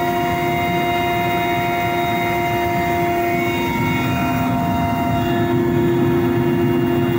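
Cabin noise of a transport helicopter in flight: a steady turbine whine with several high tones over a dense low rumble of rotor and airflow.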